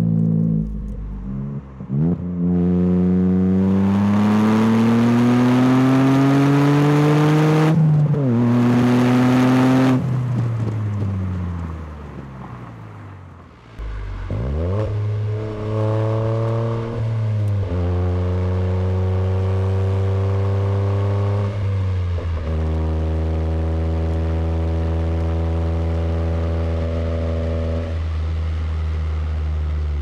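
Toyota GR Corolla's turbocharged 1.6-litre three-cylinder heard at the tailpipe through an SXTH Element aftermarket exhaust while driving. The engine pulls up through the revs, shifts and pulls again, then falls away as the throttle is lifted. About halfway through a second exhaust is heard: it accelerates, shifts twice and settles into a steady cruise.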